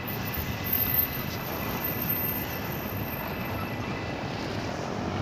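Distant EMD G22U diesel-electric locomotive running, a low steady rumble.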